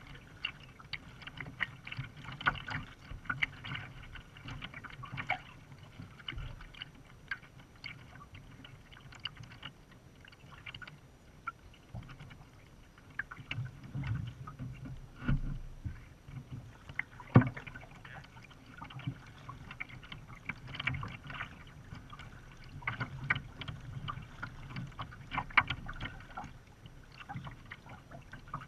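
Water splashing and lapping against the bow of a kayak as it is paddled, with irregular drips and splashes. One sharp knock a little past halfway.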